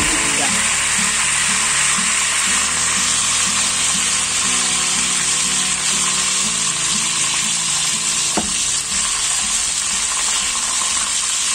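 Whole chicken deep-frying in a wok of hot oil: a steady, dense sizzle and bubbling.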